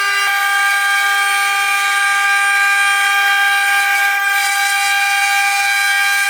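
CNC milling machine running with a steady, unchanging high whine made of several pitches together.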